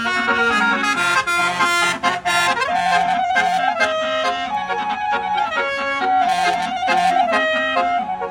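Basuri telolet bus horn playing a tune in a flute-like tone over a repeating stepped bass line, with one note sliding upward about two and a half seconds in.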